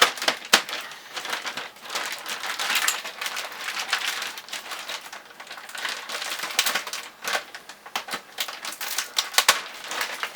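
Packaging around a bicycle repair stand being opened and handled: crinkling and rustling with many sharp clicks and taps in an irregular run.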